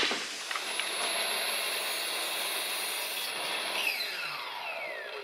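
Electric sliding miter saw running, cutting 18 mm plywood strips to length; about four seconds in the motor is released and the blade spins down with a falling whine.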